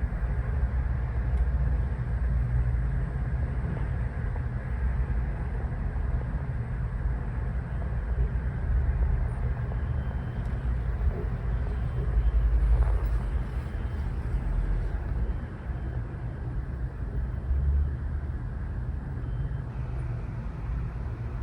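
Steady low rumble of background noise, without distinct events.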